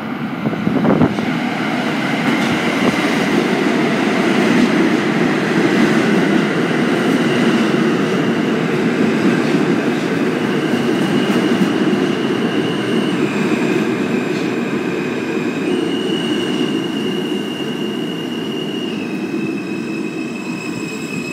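R160A-1 subway train pulling into the station and slowing along the platform: a loud rumble of wheels on the rails, with a high electric whine from the propulsion that jumps between pitches several times as the train slows.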